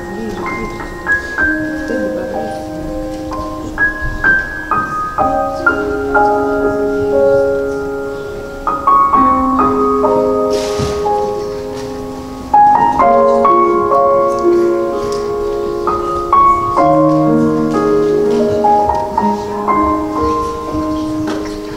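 Slow, gentle piano music: a melody of held notes moving stepwise over a lower line.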